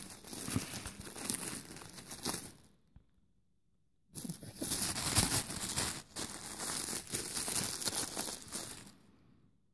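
Paper wrapping of a small parcel crinkling and tearing as it is unwrapped by hand, in two stretches with a break of about a second between them.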